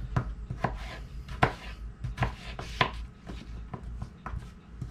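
Knife chopping red potatoes into small chunks on a cutting board: a dozen or so sharp, irregular chops.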